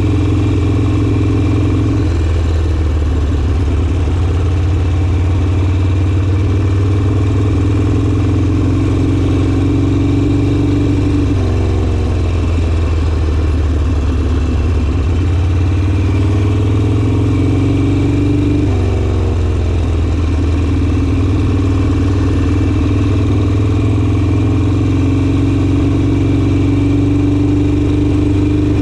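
Harley-Davidson Sportster's air-cooled V-twin running loud and steady under way. Its note climbs gradually, drops abruptly four times (about 2, 11, 15 and 19 seconds in) and climbs again after each drop, as the rider shifts gear or comes off the throttle.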